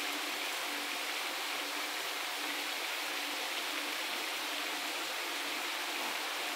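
Paella of seafood broth and rice boiling in the pan on a gas burner: a steady hiss of fine bubbling.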